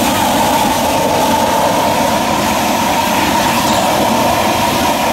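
Propane weed-burner torch running with a steady rushing noise, its flame firing into a charcoal kettle grill to light the coals.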